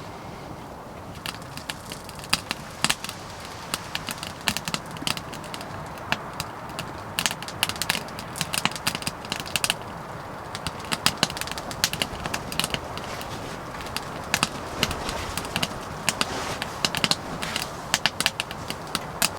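Wood fire crackling in a small camping wood stove: irregular sharp pops and snaps over a steady hiss.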